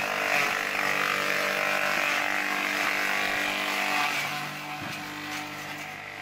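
Small electric grass chopper (chaff cutter) running steadily while chopping a bundle of fresh grass stalks fed into it; the chopping noise drops away about four seconds in, leaving the motor's hum.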